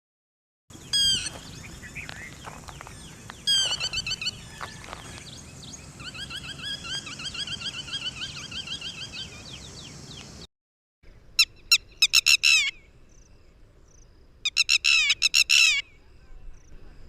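Lapwing calls, in two recordings cut together. The first has sharp high notes and then a run of quick repeated calls. After a short break about ten seconds in, the second has bursts of rapid, sharp repeated notes, each burst lasting about a second.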